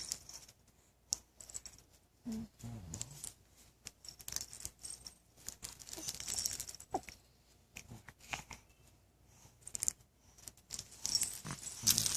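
Scattered rustling, crinkling and light handling noises, with a short voice-like sound about two seconds in.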